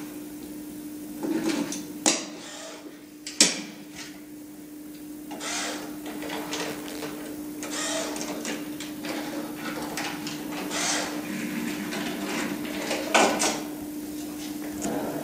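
Handling noises of plastic toy pieces being moved on a model: sharp clicks about 2 and 3.5 seconds in and again near the end, with scraping and rustling between, over a steady low hum.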